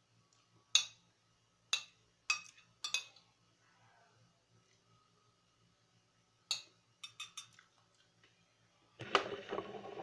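Metal fork clinking and scraping against a ceramic plate while scooping curry and rice: four sharp clinks in the first three seconds, another short cluster around six and a half to seven and a half seconds in, then about a second of denser clattering near the end.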